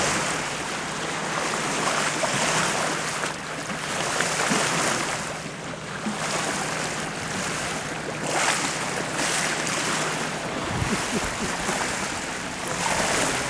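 Sea water rushing and splashing along the hull of a sailing boat under way, surging and easing every two seconds or so.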